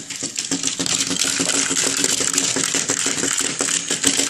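Battery-operated Chubby Puppies toy puppies switched on and running: a steady, rapid plastic clicking and rattling from their walking mechanism over a low buzz. It is a loud toy.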